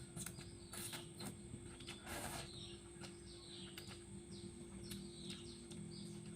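Birds chirping in the background: short falling chirps, about one a second. A few sharp clicks and a brief half-second noise about two seconds in.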